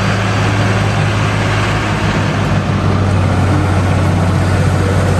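Large six-wheel fire truck's engine running steadily with a deep even hum, under the hiss of water jetting from its roof-mounted water cannon.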